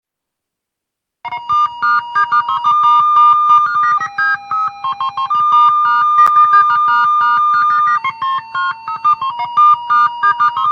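Electronic casino slot machine playing its spinning-reels jingle: a fast, busy run of bright synthesized beeps and chiming notes, with a few longer held tones, starting about a second in.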